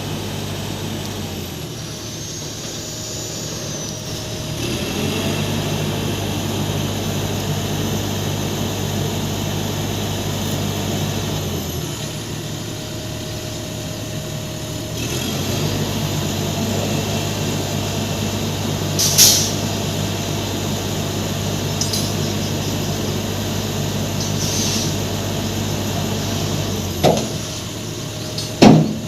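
Heavy diesel engine running and working, its revs dropping and picking up again in steps, as when powering a lift. Short sharp bursts of noise stand out about two-thirds of the way in and twice near the end, the last the loudest.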